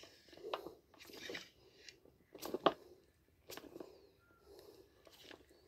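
Baitcasting reel being cranked while a topwater popper lure is twitched back: a faint, uneven string of short crunching clicks and pops, roughly one a second.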